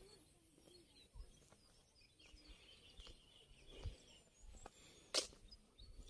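Faint morning outdoor ambience with distant birds chirping, a few soft low thuds, and one sharp click about five seconds in.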